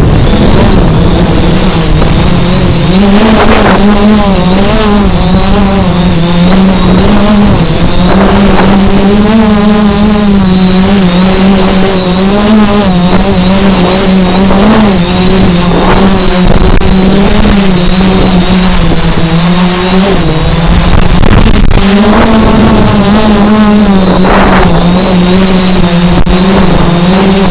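Multirotor drone's electric motors and propellers buzzing loudly close to the microphone: a steady whine whose pitch wavers gently up and down as the motors adjust.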